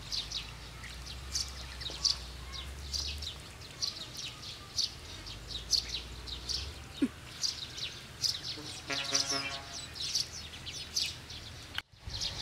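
Birds chirping over and over in short, high, falling notes. About nine seconds in, a brief lower call with a buzzy tone sounds once.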